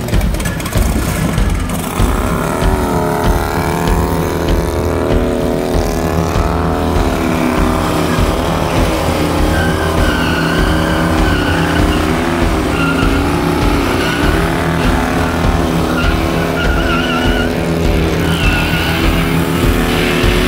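Harley-Davidson Dyna's V-twin engine held at high revs while the rear tyre spins on the tarmac in a burnout, with a wavering tyre squeal over the engine's pulsing beat.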